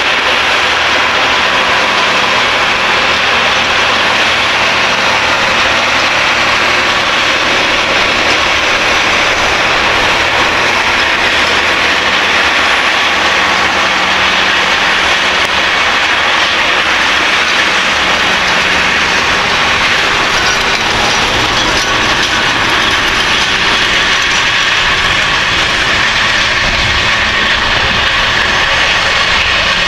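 Case IH Quadtrac 620 tracked tractor running steadily under load while working a cultivator, its low engine note under a loud, continuous wash of noise. The engine note shifts slightly about halfway through.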